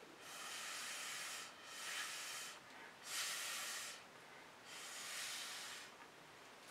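Breath blown through a drinking straw onto wet acrylic pour paint to push it around the canvas. There are four long, breathy blows, each about a second long, with short pauses between.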